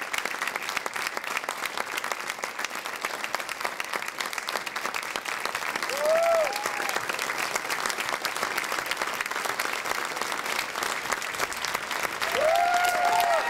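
Theatre audience applauding steadily, dense clapping, with a few voices whooping in rising-and-falling cheers about six seconds in and again near the end.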